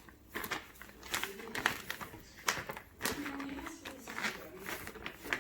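Plastic bag crinkling and rustling in irregular bursts as ground beef is pressed flat inside it.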